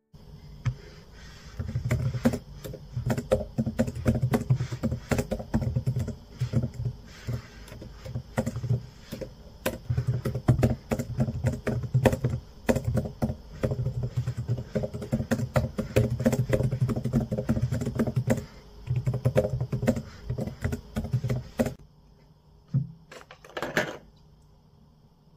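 Fast typing on a laptop keyboard: quick runs of light key clicks with short pauses between them. The typing stops a few seconds before the end.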